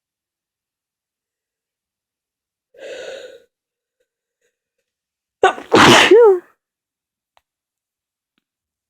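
A person sneezes once, loudly, about five and a half seconds in; the sneeze ends in a short voiced tail. About three seconds in, a much fainter breathy, voiced build-up comes first.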